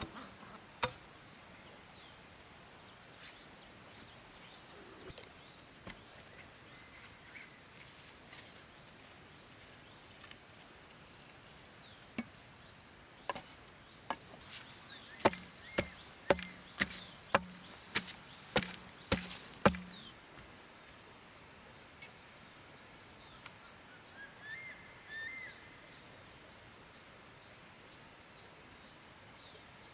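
A run of sharp chopping or knocking strikes, about two a second, from about 15 to 20 seconds in, preceded by a few scattered single strikes. A steady high thin tone runs underneath throughout.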